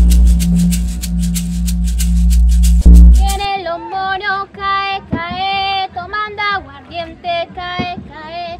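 Background music with a heavy bass and a quick, rhythmic high ticking, cut off abruptly about three and a half seconds in. Then a girl's voice sings a melody unaccompanied, in short phrases with held notes.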